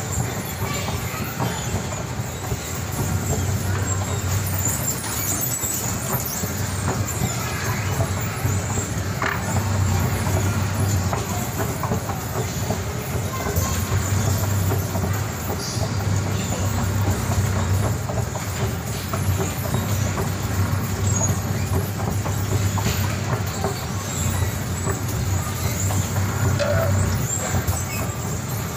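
Escalator running, a steady mechanical noise with a low hum that swells and eases every few seconds; its handrail chain is broken.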